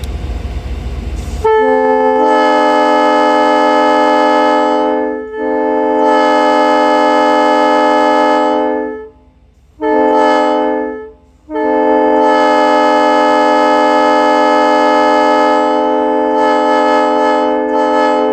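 A Prime three-trumpet locomotive air horn sounding a loud, steady chord. It gives a long blast of about seven seconds with a brief dip in the middle, then a short blast, then another long blast.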